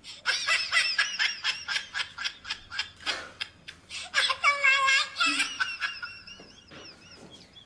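High-pitched laughter, a rapid run of ha-ha-ha that goes on for several seconds, with a drawn-out cackle in the middle and tailing off near the end.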